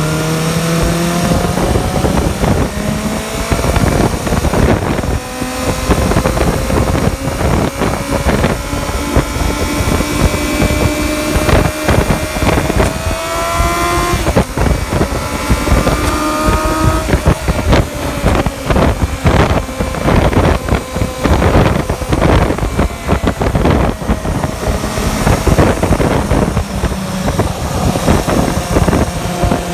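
An engine-swapped Suzuki Choinori riding along on its Bandit 250 V inline-four engine. The engine note climbs slowly for about the first half, then drops back and levels off, with heavy wind buffeting on the microphone.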